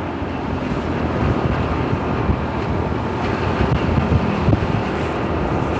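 Wind buffeting the microphone over a steady rumble of road vehicle noise.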